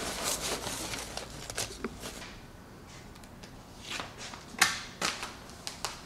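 Stiff plastic sheet rustling and crackling as it is handled and flapped, in scattered sharp crinkles, the loudest about two-thirds of the way through.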